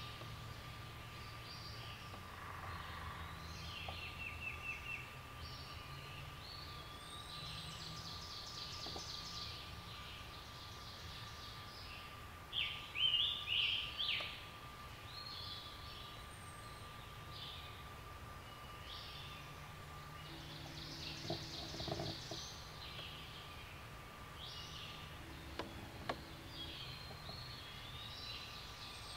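Several songbirds singing in a spring forest, their songs overlapping. The loudest is a group of three phrases about twelve to fourteen seconds in. A thin steady high tone runs under the birdsong for the first two-thirds.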